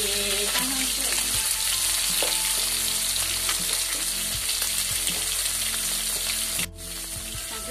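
Fish frying in hot oil in a wok, a steady loud sizzle. Near the end it cuts out for an instant and comes back a little quieter.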